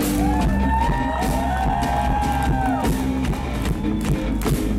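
Loud electronic hip-hop music over a concert PA, with heavy bass, a steady beat and gliding, arching melody lines.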